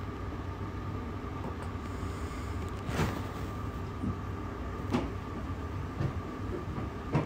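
Steady room hum with a thin, constant whine, and a handful of light clicks at irregular intervals.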